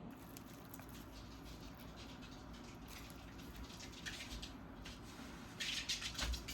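Faint, irregular light clicking and rustling, like small objects being handled, getting busier and louder near the end.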